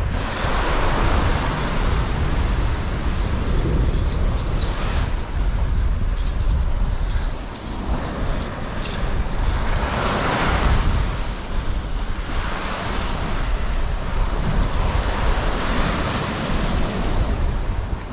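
Sea waves surging and washing in against the shore, swelling up several times, with a steady low rumble of wind buffeting the microphone.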